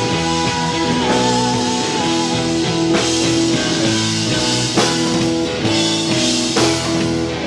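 Rock band playing a wordless passage: guitar and drum kit, with a held high note that starts to waver about a second in.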